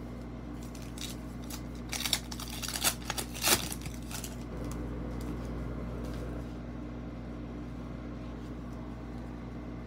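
Foil trading-card pack wrapper crinkling and cards being handled: a cluster of short crackles and clicks between about two and four seconds in, over a steady low room hum.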